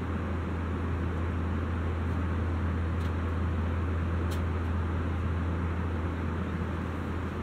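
Airbus A320 cabin noise at cruise, heard from inside the cabin: a steady rush of air with a strong low engine drone underneath. Two faint ticks come in the middle.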